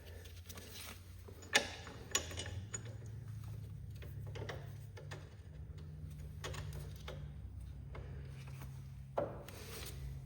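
Light clicks and rubbing of tools and metal parts being handled during repair work on a garden tractor's pedal linkage, over a steady low hum.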